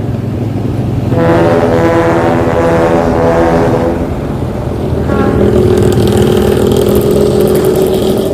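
Bus air horns sounding two long, steady blasts: one starting about a second in and lasting about three seconds, another starting about five seconds in and holding to the end. A diesel engine keeps running underneath.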